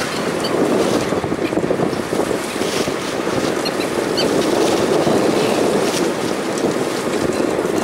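Steady wind and sea noise around a small open fishing boat, with wind on the microphone.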